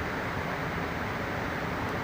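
Mountain river rushing steadily over rocks.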